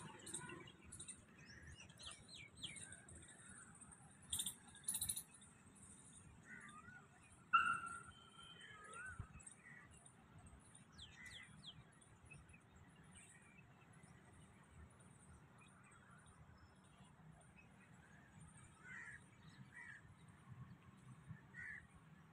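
Faint outdoor birdsong: scattered short chirps and calls from several birds, the loudest a short warbling call about seven and a half seconds in, with a few sharp high ticks around four to five seconds in.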